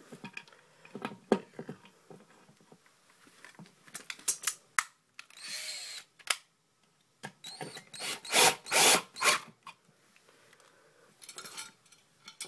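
Handheld drill run in short bursts, driving screws to fasten a metal meter socket to the wall, with knocks and clicks of handling in between. The loudest runs come about two-thirds of the way in.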